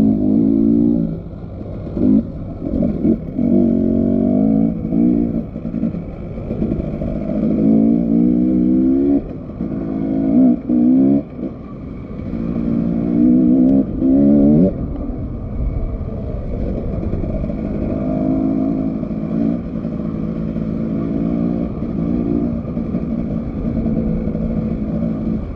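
Motorcycle engine being ridden hard, revving up in repeated climbs of pitch and dropping back between them, then running more steadily through the second half.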